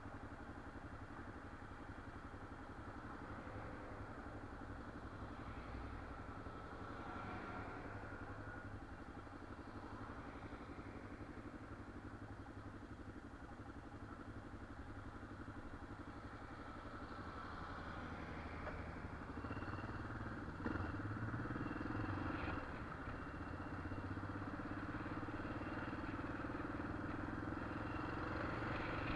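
Yamaha XT600E's single-cylinder engine idling steadily, heard from the rider's position. About two-thirds of the way through there is a clunk and the engine gets louder as the bike pulls away.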